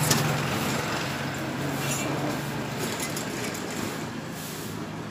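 Steady background noise: a low hum under an even hiss, slowly growing fainter, with a few faint ticks.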